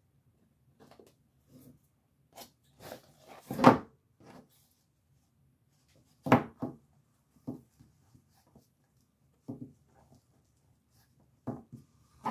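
Scattered short knocks and taps of craft materials being handled and set down on a work surface, the loudest about three and a half seconds in.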